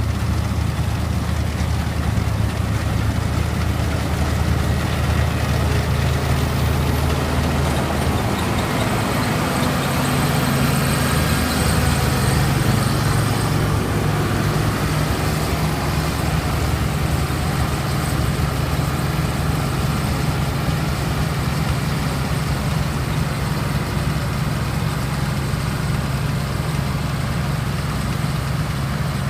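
John Deere 630's two-cylinder engine running steadily while working, its low note shifting between about a third and half of the way through before settling again.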